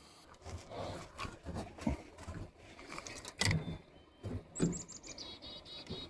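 A small bird singing a rapid trill of high notes that steps down in pitch, starting about two-thirds of the way in, with a few short high chirps just before it. Scattered knocks and light clatter sound throughout, the loudest about halfway through.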